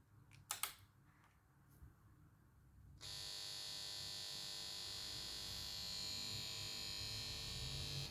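Samsung plasma TV's power supply board making a steady hissing buzz threaded with high whining tones, which comes on suddenly about three seconds in after a couple of sharp clicks. The TV fails to start and only makes this noise from the power board, the sign of a power-board fault.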